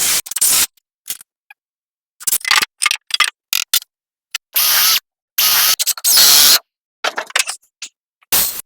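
A choppy series of workshop noises: short knocks and runs of power-tool noise lasting up to about a second, each cutting off abruptly into silence.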